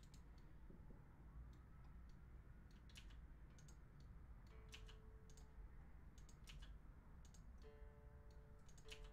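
Faint, irregular clicks of a computer mouse and keyboard, roughly one a second, over a low steady hum.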